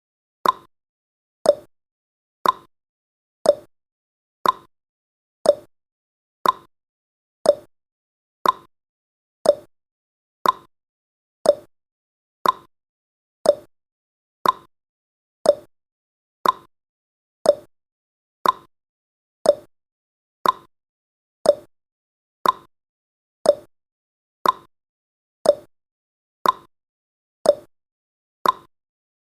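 Countdown timer's clock-tick sound effect: a short, sharp tick exactly once a second, alternating slightly higher and lower like a tick-tock.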